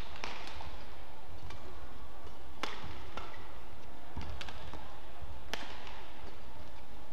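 Badminton rally: rackets striking the shuttlecock back and forth, a sharp smack about every one to one and a half seconds, over a steady low arena hum.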